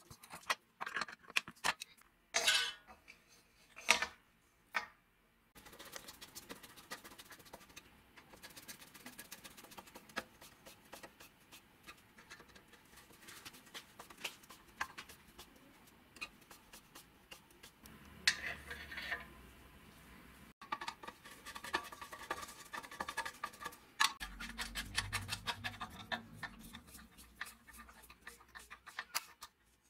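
Hand tools clicking and scraping on metal during reassembly of a sheet-steel warmer housing: slip-joint pliers on a threaded rod, then a screwdriver turning small screws. It starts with a few sharp clicks, followed by many quick small ticks and scrapes.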